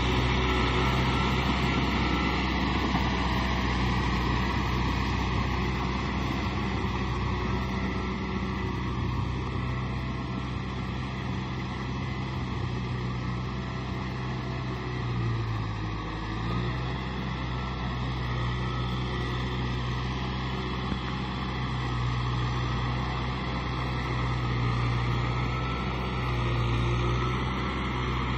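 Kubota M6040 SU tractor's diesel engine running steadily under load while working a flooded rice paddy. It grows somewhat quieter in the middle as the tractor moves away, then louder again near the end. About halfway the engine note dips briefly and recovers.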